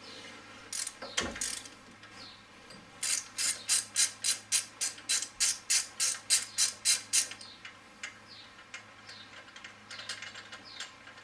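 Socket ratchet wrench clicking in a fast, even run of about five clicks a second for some four seconds, with a few separate clicks and knocks before it, as it undoes an AC compressor bracket bolt on a VW VR6 engine.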